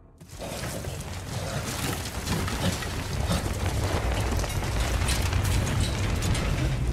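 A sudden, loud rushing roar of drilling mud and gas blowing out of the well and pouring down, with a deep rumble beneath. It starts a moment in and builds.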